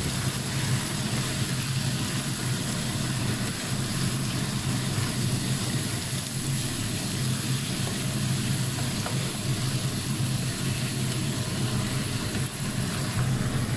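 Water spinach frying in oil in a frying pan as it is stirred with a wooden spatula, giving a steady sizzle over a steady low hum.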